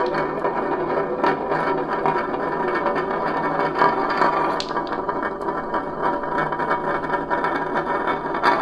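Continuous dense clatter of many small beads or balls rattling and rolling together down a marble run, a fast stream of tiny clicks.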